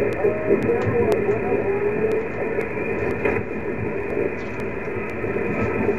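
Amateur HF transceiver's speaker in single-sideband receive on the 17-metre band: a steady hiss of band noise, cut off above the voice range, with a weak signal barely showing through it.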